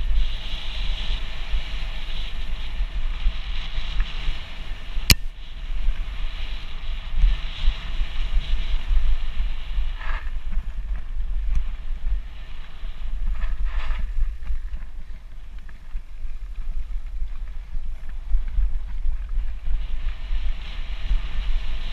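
Wind buffeting the microphone of a bike-mounted action camera while a mountain bike's tyres roll over a gravel singletrack, with one sharp click about five seconds in.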